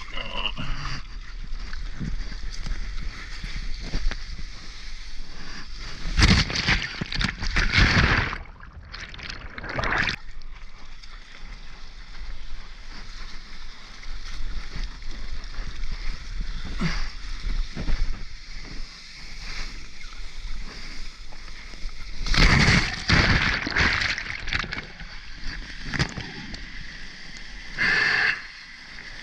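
Seawater splashing and sloshing around a foam soft-top surfboard moving through small surf, heard right at the water's surface. Louder rushes of water come about six to eight seconds in, again around twenty-two to twenty-four seconds, and briefly near the end.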